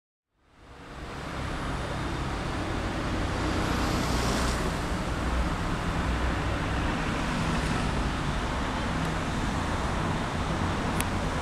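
Class 57 diesel locomotive running as its train approaches, a low steady engine sound with a faint high whine about four seconds in and a single sharp click near the end. The sound fades in from silence under a second in.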